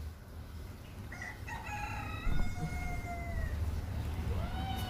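A rooster crowing: one long crow starting about a second in, and a second crow beginning near the end.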